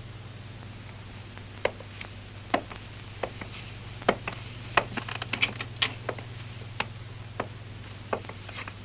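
About a dozen sharp clicks and taps at uneven spacing, bunched together near the middle, over a steady low hum.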